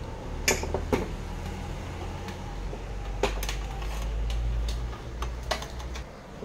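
A handful of sharp clicks and knocks as a cordless drill is set down and metal battery-clamp leads and wire are handled on a wooden workbench, over a low steady hum.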